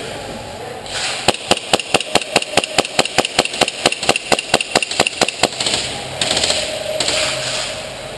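Airsoft rifle firing a long, rapid string of shots, about five a second for some four seconds, each shot a sharp crack.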